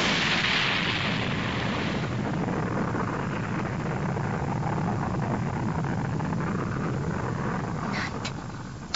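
Animated energy-beam explosion sound effect: the hiss of the blast dies away over the first couple of seconds, leaving a steady low rumble that drops off near the end.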